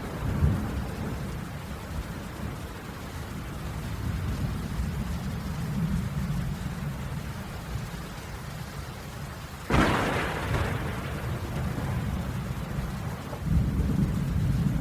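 Rainstorm with rolling thunder rumbling low under steady rain. A sudden sharp thunderclap cracks about ten seconds in, and the rumble swells again near the end.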